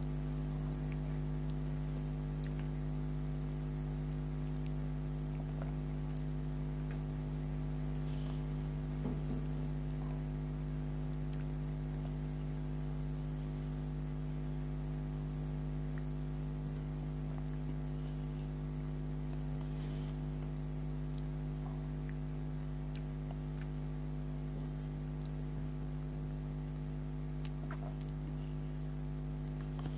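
A steady electrical hum of several fixed tones, with faint scattered clicks and soft mouth sounds of someone chewing Indian milk sweets.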